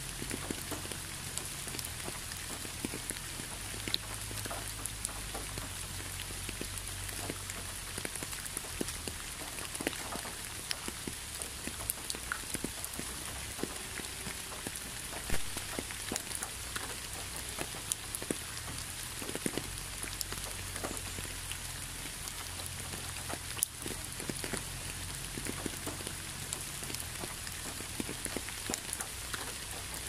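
Steady rain falling: a constant hiss with many separate drop taps scattered through it.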